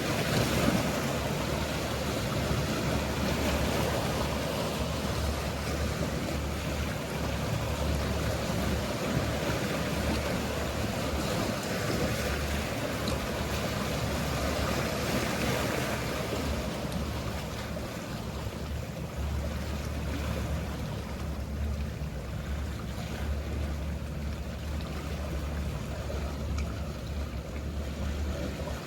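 Mediterranean sea waves washing steadily, fuller over the first half and softer later, over a low, steady rumble that drops out now and then.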